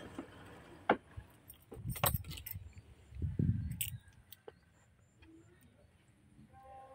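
Light metallic jangling and scattered sharp clicks, with low thumps about two and three seconds in, fading to faint background in the second half.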